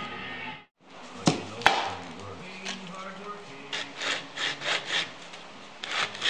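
Guitar music ends under a second in. Then come two sharp knocks, followed by quick back-and-forth hand-sanding strokes, about four a second, as a small wooden piece is rubbed on sandpaper held against a metal paint can.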